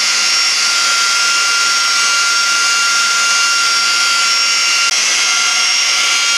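Electric rotary polisher running at a steady speed with a high-pitched whine, its finest foam pad buffing a plastic headlight lens with fine polishing compound.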